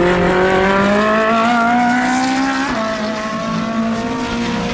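Race car engine accelerating hard, its pitch climbing, then dropping sharply a little past halfway as it shifts up a gear and climbing again.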